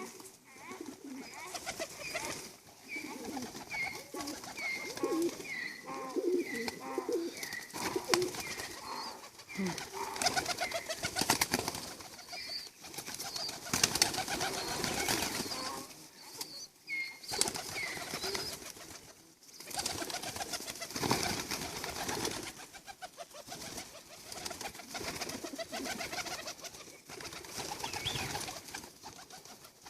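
A flock of pigeons cooing, the low coos clearest in the first several seconds, among many sharp clicks and bursts of rustling noise.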